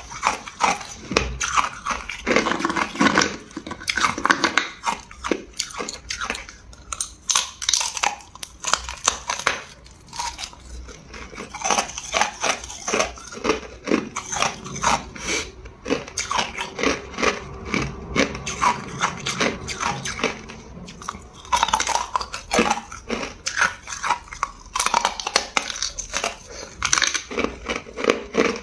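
Hard clear ice being bitten and crunched between the teeth, in runs of rapid sharp crackling with short lulls about ten and twenty seconds in.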